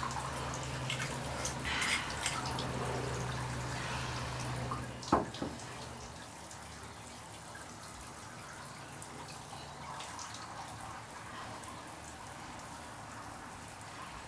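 Water dripping in a bathtub, over a low steady hum that stops after about five seconds. A single sharp knock comes about five seconds in.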